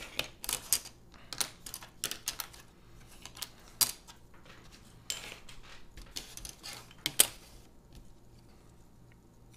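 Carbon-fibre drone frame plates clicking and clacking as they are handled and set down on a cutting mat: irregular light taps, the sharpest about four and seven seconds in.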